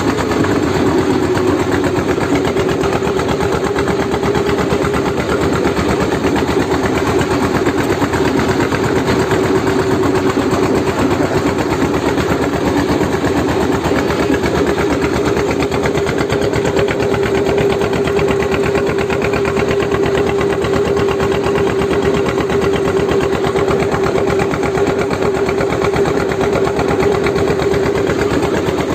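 Small engine running steadily at a constant speed, with a steady mid-pitched hum and a fast, even firing rhythm.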